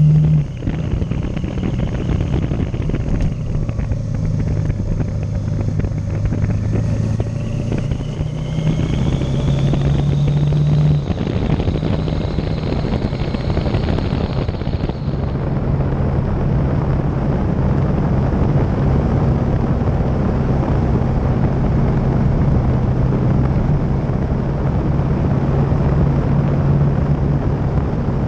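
Motorcycle engine running at road speed under wind and road noise, its note shifting a few times in the first half as the throttle changes, then holding steady. A faint high whine rises through the first half.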